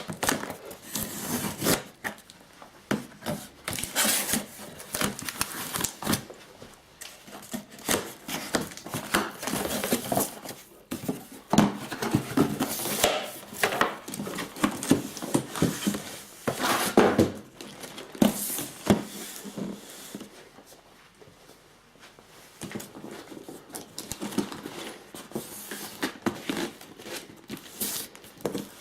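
Hands unpacking a boxed kit: cardboard and plastic packaging rustling and crinkling, with irregular sharp knocks and clicks as pieces are handled, quieter for a few seconds past the middle.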